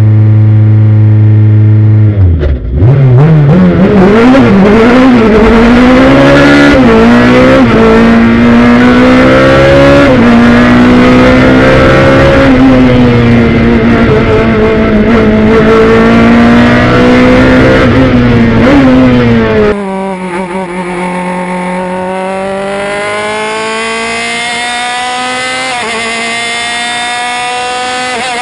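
Race car engine heard from on board: it holds steady raised revs, then launches about two seconds in and revs hard through several quick upshifts. It keeps pulling at high revs, with the pitch rising and dipping. About twenty seconds in, a quieter engine takes over and revs up and down through its gears.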